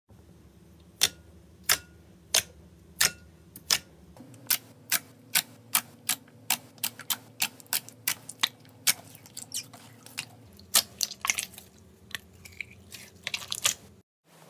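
Clear glitter slime being poked and pressed by fingers, giving a string of sharp clicks and pops, about two a second, as trapped air bursts out.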